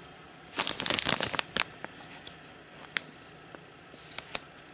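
Clear plastic sleeves crinkling as artist trading cards are pulled out and handled: a dense rustle for about a second, starting half a second in, then a few scattered crackles.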